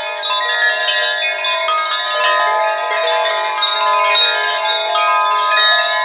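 Wind chimes ringing without pause, many notes sounding at once and overlapping as new ones are struck all the time.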